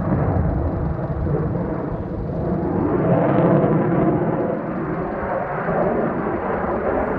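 Sukhoi Su-30MKI fighter jet in flight, the steady noise of its twin AL-31FP turbofan engines as it manoeuvres overhead. About three seconds in, the noise grows louder and higher-pitched.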